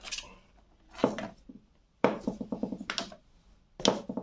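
Makeup bottles and compacts knocking and clinking as they are set down one after another, with a longer clatter in the middle as they bump against each other.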